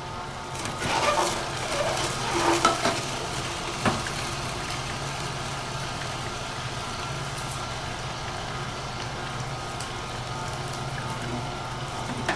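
Slow-turning (80 RPM) single-auger juicer running with a steady low motor hum. From about half a second to four seconds in, crackling and crunching as a handful of cilantro is pushed into the feed chute of the Omega 8004 horizontal juicer and caught by the auger, with a sharp click near the end of it.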